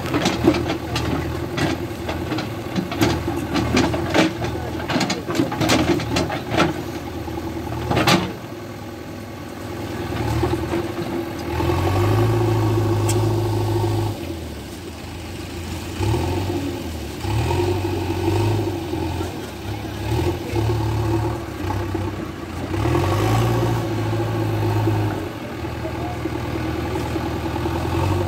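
JCB backhoe loader's diesel engine running and revving up several times as the machine works to lift an overturned truck. A quick series of sharp knocks comes in the first several seconds.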